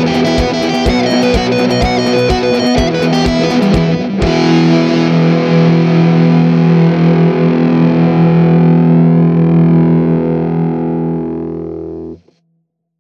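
Rock music with distorted electric guitar and steady drum hits, ending about four seconds in on a final hit and a held chord that rings and slowly fades, then cuts off near the end.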